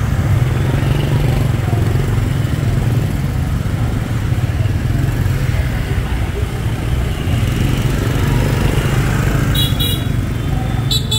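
Street traffic thick with motorbikes, heard from within it: a steady low rumble of small engines and road noise, with two brief sharp sounds near the end.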